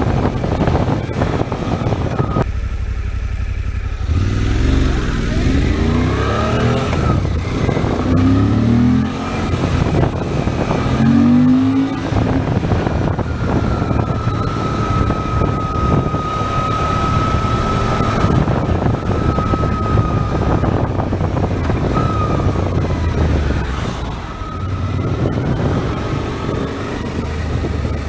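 Suzuki V-Strom 800 SE's parallel-twin engine, with a modified air box for more intake sound, accelerating through the gears: the revs rise and drop three times as it shifts up, then hold steadier, and rise again near the end.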